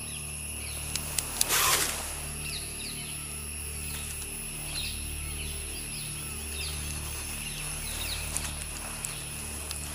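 Forest ambience: a steady high insect drone with scattered faint bird chirps and a low, slowly pulsing throb underneath. A short hiss comes about one and a half seconds in.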